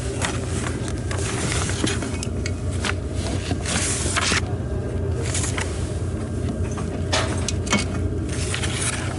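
Steady low rumble of an express train running, heard inside the passenger cabin. Over it come clicks and clattering knocks of a metal two-sided footrest under the seat being handled and flipped over, the sharpest knocks about seven seconds in.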